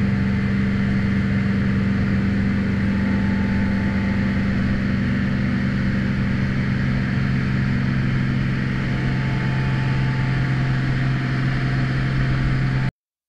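Motorboat engine running steadily at speed, a constant low hum over the rush of the wake water. It cuts off suddenly near the end.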